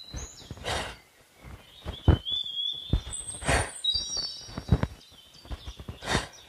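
Birds chirping in short, high whistled notes, over rustling and soft thuds of feet shifting on dry leaf litter, with a few brief noisy swishes of movement.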